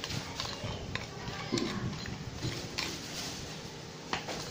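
A few light clinks and knocks of a bowl and kitchen utensils being handled while a salad is seasoned with sugar.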